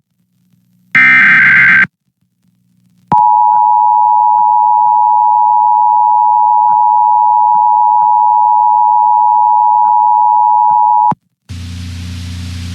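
Emergency Alert System broadcast alert: the last burst of the SAME digital header, a harsh buzzing data screech about a second long. After a brief gap comes the steady EAS attention signal tone, held for about eight seconds before it cuts off. The opening of a Required Monthly Test, followed near the end by a low steady hum as the audio feed for the announcement comes up.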